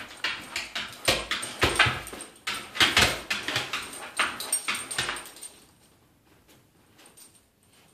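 An Irish setter's claws clicking and scraping on the hard surface of an empty bathtub as it moves about, a quick run of scrapes that dies away about five seconds in.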